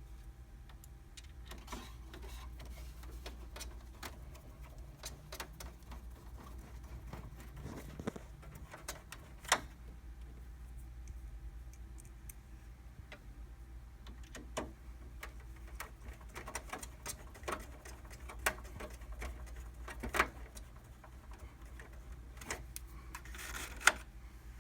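Scattered light clicks, taps and small knocks of hand tools and screws on a printer's metal and plastic parts as screws are driven back in with a Phillips screwdriver, with a few sharper clicks and a brief rustle of handling near the end.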